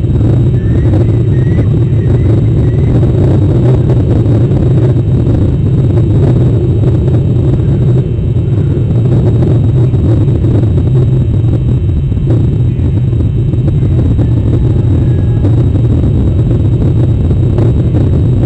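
A steady, loud low rumble of wind buffeting the exposed nest camera's microphone, fluttering in strength. A few faint, short rising chirps come in the first few seconds.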